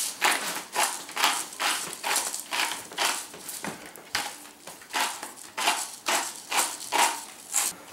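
Hand-twisted pepper mill grinding pepper, in short repeated grinding strokes at about two a second.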